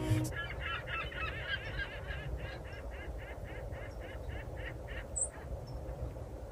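A string of repeated bird calls: several birds overlapping at first, then an even run of about four calls a second that fades out about five seconds in, over a low steady rumble.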